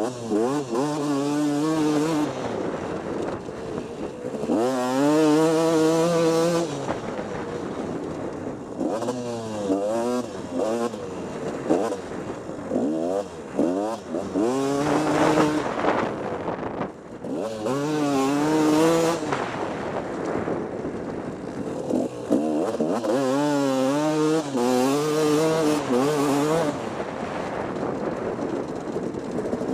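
Motocross bike engine ridden hard on a dirt track, its note climbing and dropping over and over as the throttle opens and closes and the gears change, with wind rushing over the helmet camera.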